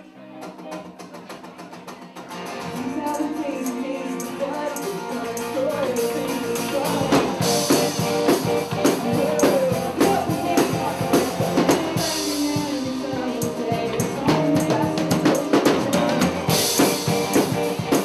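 Band music with drum kit, guitar and singing. It starts thin, fills out about two and a half seconds in, and the full drums come in around seven seconds, with cymbal crashes.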